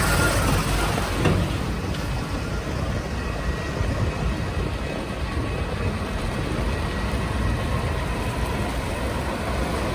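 Diesel dump truck engine running steadily close by, loudest in the first second or so.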